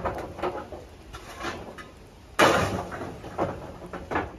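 A single loud bang about two and a half seconds in, among lighter knocks and clatter.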